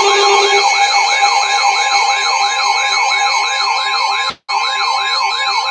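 Electronic siren-like alert sweeping up and down in pitch about three times a second, layered over several steady alert tones, including one near 1 kHz like a weather radio's alert tone. The sound drops out for a moment about three quarters of the way through.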